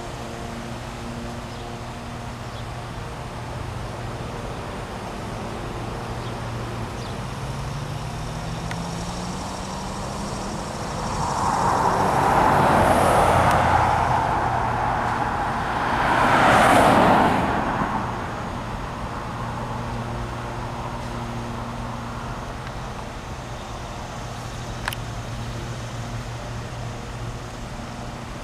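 Two road vehicles pass close by in quick succession, each swelling up and fading away, over a steady low engine hum.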